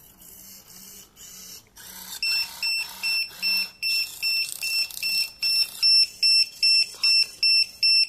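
An electronic beeper sounding a high, steady tone in short, even beeps, about two and a half a second, starting about two seconds in and growing louder. Faint short hums come before it.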